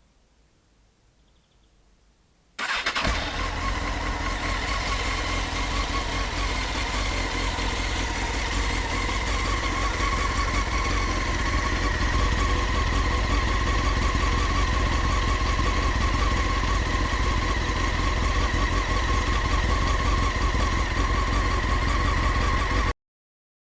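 Honda CBR900RR Fireblade's inline-four engine starting about two and a half seconds in, then running at a steady idle through its exhaust, a little louder after the first several seconds. The sound cuts off suddenly near the end.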